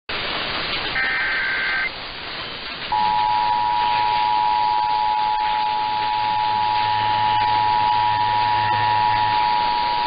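Emergency Alert System test heard through a static-laden AM radio signal: a short burst of the warbling SAME digital header data about a second in, then from about three seconds the steady two-tone EAS attention signal, over constant hiss.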